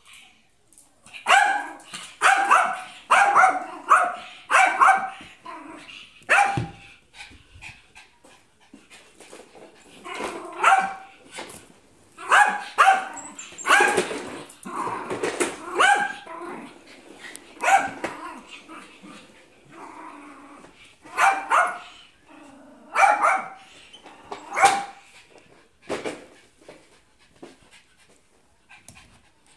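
Small dog barking in quick runs of sharp, high barks, with short pauses between the runs. The barking is aimed at a broom pushed toward it: the dog's fear of the broom.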